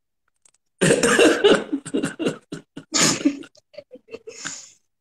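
A man laughing hard in short bursts, with a loud run about a second in, another near three seconds, and then fading, breathy bursts.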